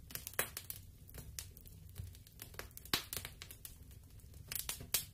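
Faint, irregular crackling: scattered small clicks and pops at uneven intervals over a low hum, like a fire-crackle sound effect.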